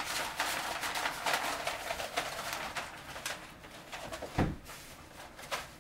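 A large sheet of paper crinkling and rustling as it is rolled up by hand, then a single thump about four seconds in.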